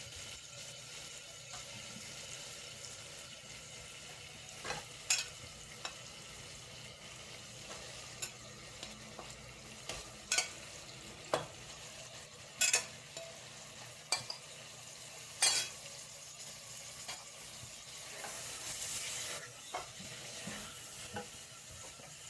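Pieces of camel meat sizzling in hot oil in a pot. A spatula scrapes and knocks against the pot every second or two as the meat is stirred.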